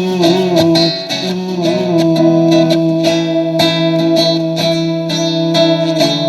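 Instrumental forró music with a lead guitar line and a steady beat, no singing.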